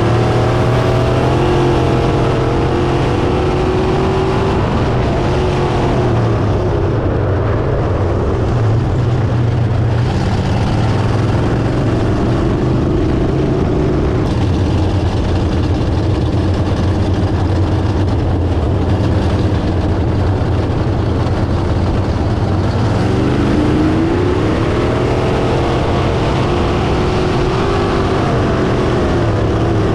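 Crate sprint car's V8 engine at racing speed, heard onboard from the cockpit. It pulls steadily down the straights, and its pitch dips and climbs back up through the turns near the start and again in the last few seconds as the throttle is lifted and reapplied.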